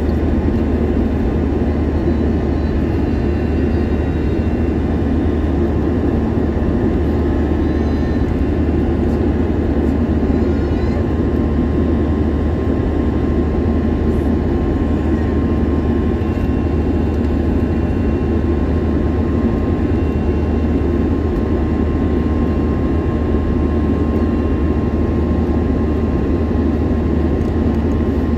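Steady engine and airflow noise inside an Airbus A321-200 cabin: an even low rumble with a faint steady whine over it.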